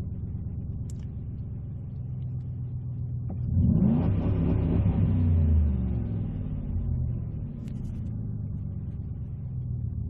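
1997 Ford Taurus SHO's 3.4-litre V8 idling, then revving up about three and a half seconds in and falling back to idle a few seconds later. The engine is running again after a no-start that was cured by a new crankshaft position sensor.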